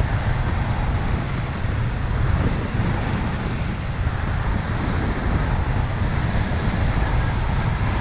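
Airflow of a paraglider in flight buffeting the microphone: a steady rushing wind noise, heaviest in a low rumble.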